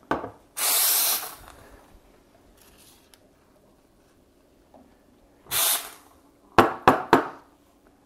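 Profitec Pro 400's steam wand blowing two short bursts of steam hiss, about a second in and again about five and a half seconds in: the wand being purged after frothing milk. Near the end there is a quick run of three or four sharp knocks.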